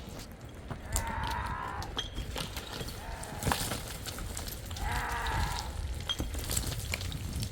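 Livestock bleating: three short calls, about a second in, a softer lower one around three seconds in, and another around five seconds in. Scattered clicks and a low rumble run underneath.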